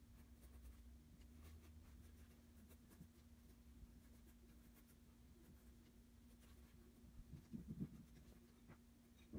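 Faint scratching of a graphite pencil on paper as light sketch strokes are drawn, over a low steady hum. A few soft low thumps come about three-quarters of the way through.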